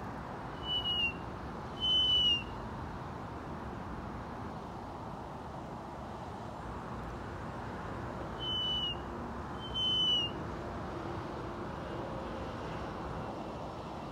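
A hawk's thin, high whistled calls, four in two pairs: each call is held level and drops slightly at the end. A steady background hiss runs underneath.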